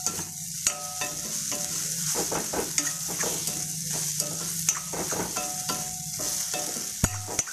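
Metal spatula scraping and tossing cubed idlis around a metal kadai in irregular strokes, with oil sizzling steadily underneath: podi idli being stir-fried on high flame to crisp up. A steady low hum runs underneath, and a sharp click comes near the end.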